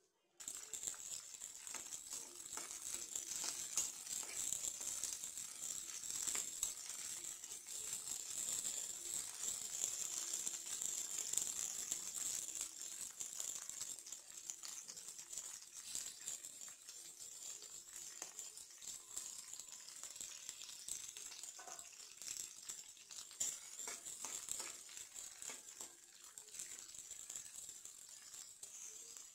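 Green chillies frying in oil in a nonstick wok: a steady sizzling hiss with dense crackling and popping, loudest in the first half and easing off in the second.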